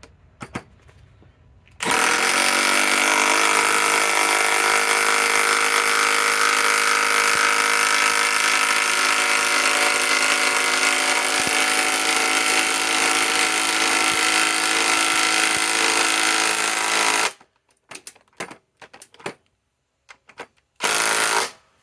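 DeWalt Atomic DCF921 compact cordless impact wrench hammering steadily for about fifteen seconds as it drives a 5-inch lag screw, then stopping abruptly. Scattered clicks and one short burst of the tool follow near the end.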